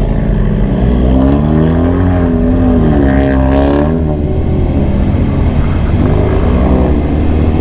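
Motorcycle engine running under way, its pitch rising and falling with the throttle, over a steady low rumble of wind on the microphone. A short hiss cuts through about three and a half seconds in.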